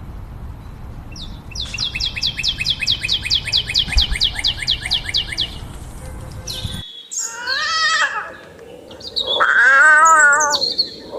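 A bird calling in a fast, even series of short chirps, about five a second, each falling in pitch. About seven seconds in the sound cuts abruptly to a different animal giving two long wavering calls, the second the loudest.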